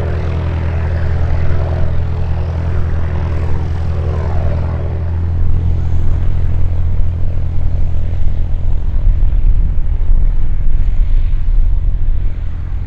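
Rutan Long-EZ's pusher propeller engine droning steadily at a distance. Its higher tones fade about five seconds in, and a gusty low rumble of wind on the microphone takes over.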